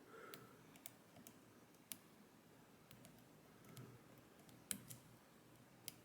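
A few faint, scattered clicks of a hook pick and tension wrench working the pins of a Ruko 500 pin-tumbler lock, as the pins are pushed up into the sleeved plug's countermilling.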